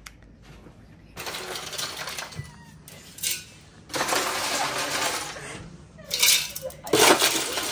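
Ice cubes clattering in a freezer drawer's ice bin as they are scooped with a cup, in three spells of rattling.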